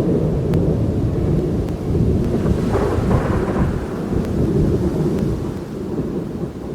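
Thunder rumbling through steady rain, swelling about halfway through and fading away toward the end.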